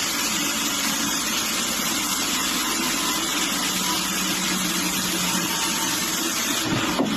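Sawmill machinery running steadily: an even engine hum under a broad hiss.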